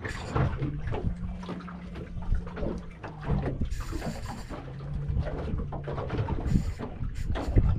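Water sloshing and lapping against a fiberglass boat hull in irregular splashes, with a low steady hum that comes and goes.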